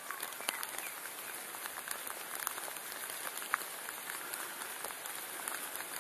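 Rain falling steadily: an even hiss with scattered sharp taps of individual drops.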